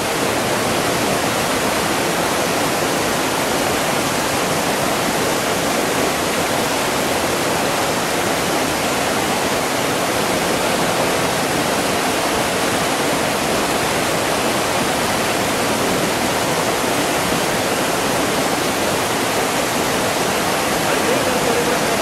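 Mountain river water rushing over a low concrete weir and churning through white-water rapids: a steady, even rushing that holds at one level throughout.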